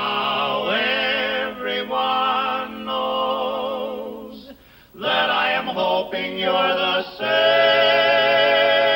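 Male barbershop quartet singing in close four-part harmony without accompaniment, the sustained notes carrying vibrato. The voices break off briefly about halfway, then come back and hold a long chord near the end.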